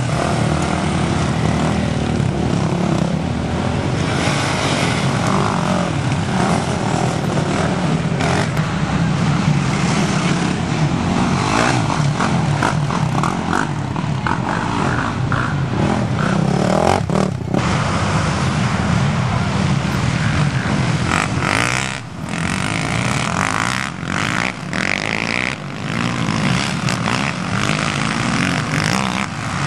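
Several racing ATV engines running and revving continuously, dropping briefly about two-thirds of the way through.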